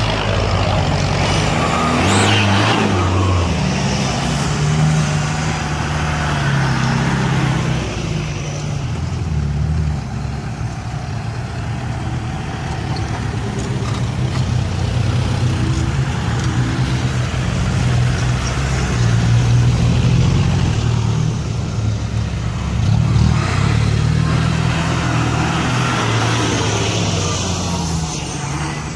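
A line of 4x4 off-road vehicles driving past one after another, their engines running steadily. The sound is loudest as vehicles pass close, once near the start and again near the end.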